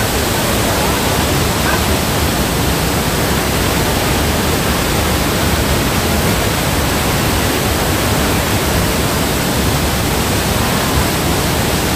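Water of the Rhine Falls waterfall crashing down in a loud, steady rush.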